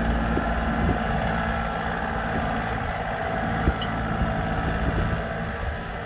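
Compact tractor engine running steadily as the tractor, carrying a post-hole auger, drives across the yard, with one sharp knock a little past halfway.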